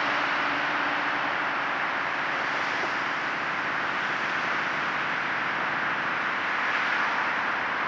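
Steady, even rushing noise in a concrete underpass, with no distinct events or voices.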